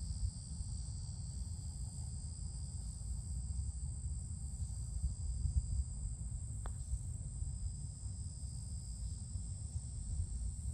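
Steady high-pitched insect chorus over a low rumble, with one faint click about two-thirds of the way through as a putter strikes a golf ball.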